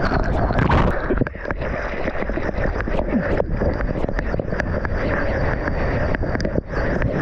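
Rushing whitewater and splashing close against a GoPro's microphone as a surfboard rides through broken foam, with many short crackles of spray. The sound drops out briefly twice, about a second in and near the end.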